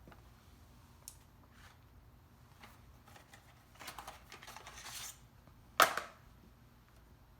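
Rear wiper blade being rotated on its wiper arm to slip it off: a few light clicks, about a second of scraping and rattling, then one sharp click about six seconds in.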